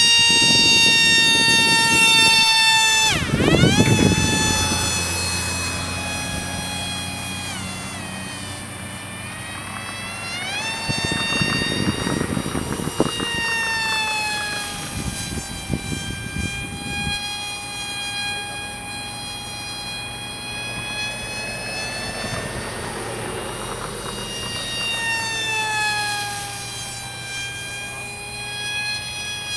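Electric motor and propeller of a small radio-control delta plane whining in flight: a high tone with several overtones. Its pitch plunges sharply and recovers about three seconds in, then slides up and down with throttle changes.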